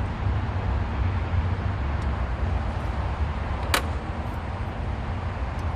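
Steady low rumble of outdoor background noise, with one sharp click about two-thirds of the way through.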